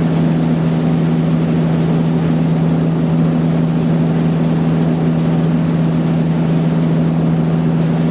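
Sawmill machinery running steadily: a constant low mechanical hum at an even level, with no change in load.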